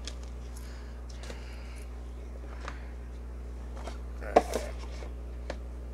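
Faint handling of a cardboard card-game box and its contents: scattered light clicks and taps, with a sharper click about four and a half seconds in, over a low steady hum.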